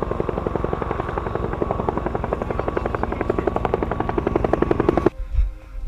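Airsoft electric gun firing on full auto: a rapid, even stream of shots over the gearbox motor's whine, which stops abruptly about five seconds in.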